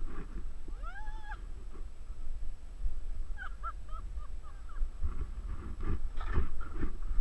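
Skis swishing through deep powder snow over a steady low rumble of wind on the camera's microphone. About a second in there is one short high-pitched call that rises and falls, and a little later a few short chirps.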